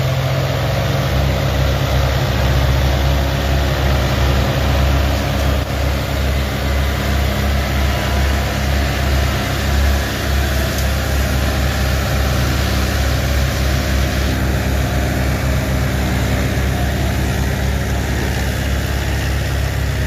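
Diesel engines of several New Holland tractors running hard together under load, hauling a heavily loaded sugarcane trailer through mud: a loud, steady low drone with a rapid throb.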